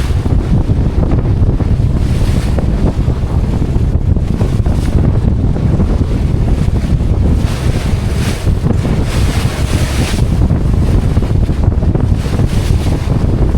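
Wind buffeting the microphone over the rush of sea and breaking waves around a small yacht in rough water. It is a loud, steady rumble, with several stretches of brighter hissing wash, the strongest a little past the middle.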